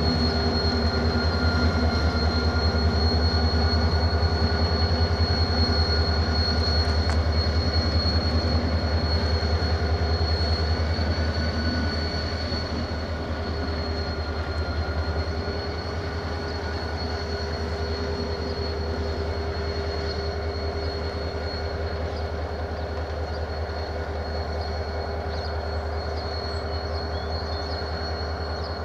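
Renfe class 333.3 diesel-electric locomotive's EMD two-stroke diesel engine running under load as it slowly hauls a train of empty timber wagons away, a strong low drone with a steady high whine over it. It grows quieter about twelve seconds in as the locomotive draws off.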